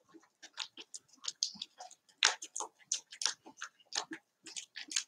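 Wire whisk beating a thick flour batter in a hand-held glass bowl: an irregular run of quick clicks, several a second, as the wires strike the glass and work through the batter.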